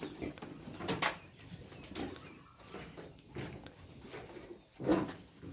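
Birds calling: two short high chirps in the middle and a stronger, lower call near the end, with a single knock about a second in.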